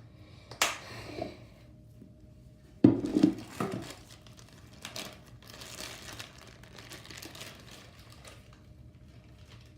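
Slime being worked by hand: a few sharp squelching pops, the loudest about three seconds in, then a run of many small crackling clicks as it is pressed and stretched.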